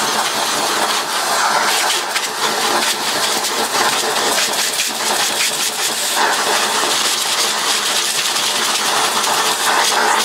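A vacuum cleaner running steadily while its hose and nozzle are worked over the parts being cleaned, with small clicks and rattles through the suction noise.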